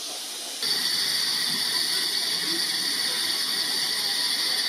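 Somerset & Dorset Railway 7F 2-8-0 steam locomotive standing with steam hissing steadily, a high-pitched hiss that gets suddenly louder about half a second in.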